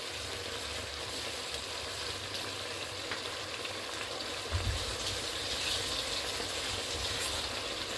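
Chicken adobo sizzling in a pot as its soy-sauce liquid cooks down to a dry finish: a steady hiss with a few faint ticks. A soft low bump about four and a half seconds in.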